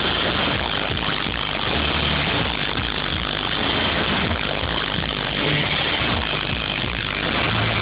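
Loud electronic dance music from a festival stage's sound system, heard from inside the crowd through a phone microphone as a dense, unbroken wash with bass notes changing underneath.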